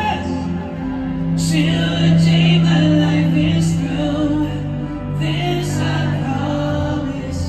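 A live band playing a slow pop ballad through a concert PA, with a voice singing over long held low notes.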